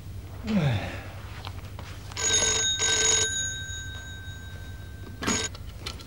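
A corded landline telephone ringing: a double ring about two seconds in, then a third ring that cuts off almost at once as the handset is lifted. A short low falling sound comes just before the first ring.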